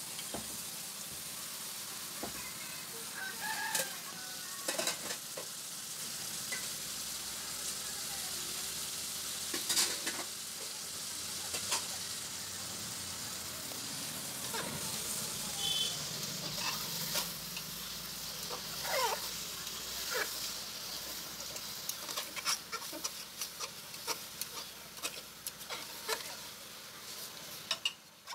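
Beef pieces sizzling in hot oil and spices in an aluminium pressure cooker, stirred with a metal spoon that scrapes and clicks against the pot.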